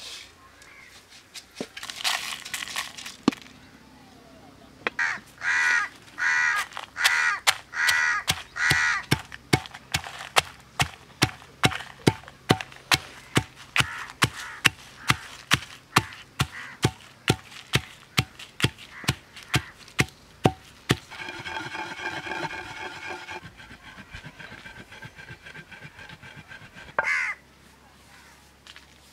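Long wooden pestle pounding dry red chillies and coriander seeds in a stone mortar: a steady run of sharp knocks, about two a second, that stops after about twenty seconds. Crows caw several times in the first ten seconds.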